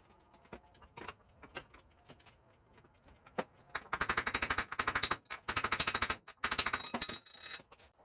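A power tool working in three bursts of rapid, evenly spaced strokes, after a few scattered clicks and knocks of metal parts.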